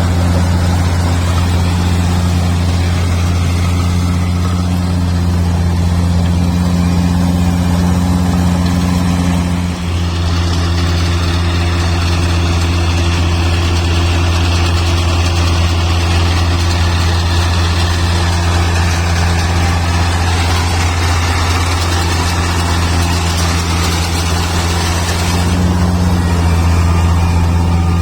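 Kubota rice combine harvester's diesel engine running steadily, a loud low drone. About ten seconds in the sound briefly dips, and after that a higher rushing hiss from the machine's working parts is stronger.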